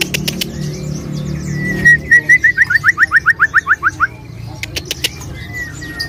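White-rumped shama (murai batu) singing: a held whistle, then a fast run of about a dozen notes, about six a second, each slurring downward. Other caged birds chirp faintly behind, with a few sharp clicks near the start and about five seconds in.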